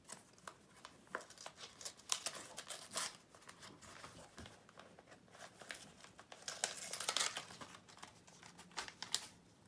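A paper greeting-card envelope being torn and worked open by hand: irregular paper crinkling and short rips, with a busier stretch about two to three seconds in and again around seven seconds.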